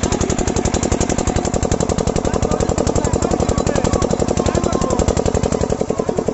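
Diesel water pump engine running with rapid, even exhaust beats, about a dozen a second, while it pumps out a high-pressure jet of water.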